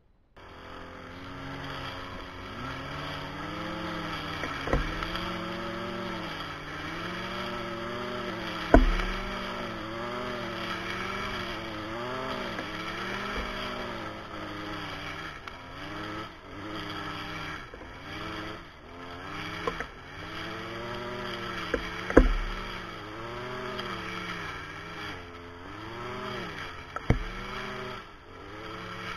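Petrol brush cutter with a chain cutting head running at high revs while cutting tall grass, its engine pitch dipping and recovering about once a second as the chain bites into the grass. A few sharp knocks stand out above the engine.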